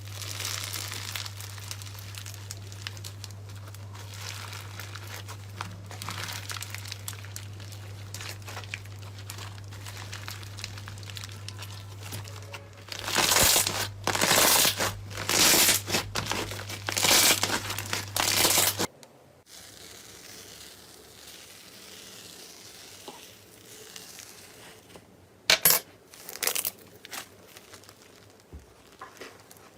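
Slime being worked by hand, making crinkling, crackling sounds, with louder bursts of crackling in the middle. A steady low hum runs under the first part. After a change of clip, the sound is quieter, with a few sharp clicks a few seconds before the end.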